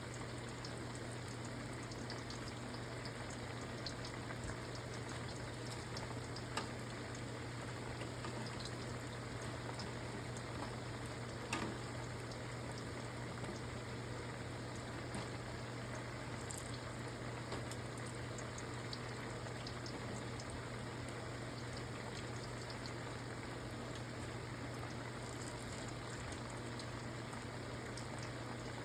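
Food cooking on a stovetop: a steady sizzling hiss with scattered small pops and crackles, over a steady low hum.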